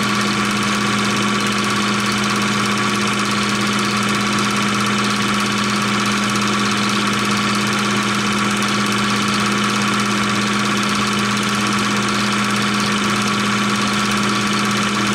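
16mm film projector running, a steady mechanical whir with a low hum and a higher whine underneath.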